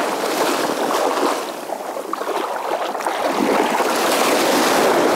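Small waves washing in the shallows at the water's edge, a steady rush of surf that eases a little and then swells again near the end.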